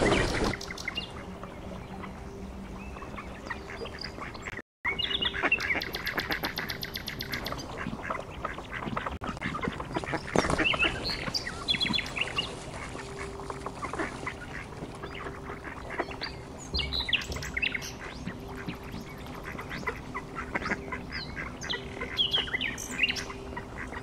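A flock of mandarin ducks calling, many short, high, squeaky and whistling calls overlapping. The sound drops out briefly about five seconds in.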